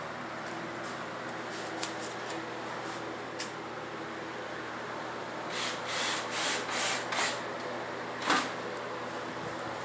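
Five quick rasping scrapes about a third of a second apart, then a single sharp knock, over a steady low hum.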